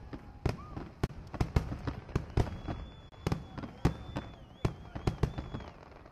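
Aerial fireworks shells bursting in rapid succession, sharp overlapping bangs about three a second. From about halfway a thin, high, wavering whistle sounds over the bangs.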